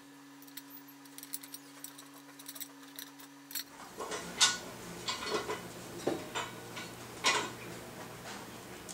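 Heater stand parts clinking and knocking as legs, bolts and nuts are fitted to the support pole: faint scattered ticks over a low steady hum at first, then irregular clinks and taps from about four seconds in.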